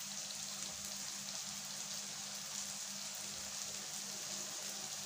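Chopped tomatoes and spice masala sizzling steadily in hot oil in a non-stick wok as they sauté, an even hiss with a faint steady low hum underneath.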